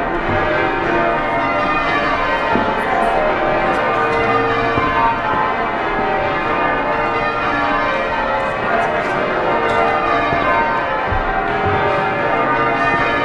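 Change ringing on Exeter Cathedral's heavy ring of twelve bells: the bells sound one after another in a continuous stream of overlapping tones.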